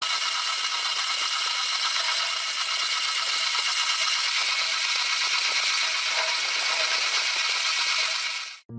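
Miniature metal inline four-cylinder model engine running, its moving parts making a fast, dense, thin metallic rattle that stays steady and cuts off suddenly near the end.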